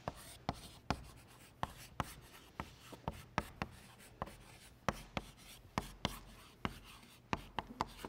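Chalk writing on a blackboard: a string of irregular sharp taps as the chalk strikes the board, with faint scratching in between.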